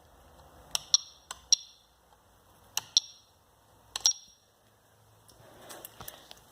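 Security-system keypad buttons being pressed, about four short high beeps, each with a click, spread irregularly over a few seconds, as the alarm is armed.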